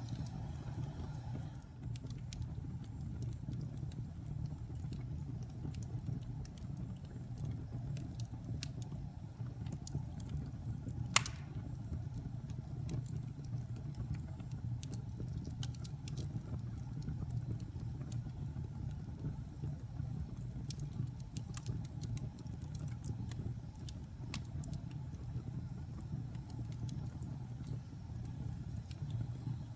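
Wood fire crackling: a steady low rumble of flames with scattered sharp pops and snaps, one much louder pop about eleven seconds in.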